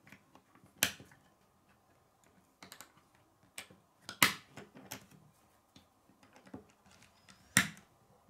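K'nex plastic rods and connectors being handled and snapped together: irregular sharp plastic clicks, three loud ones about a second in, just past four seconds and near the end, with softer clicks and taps of pieces between.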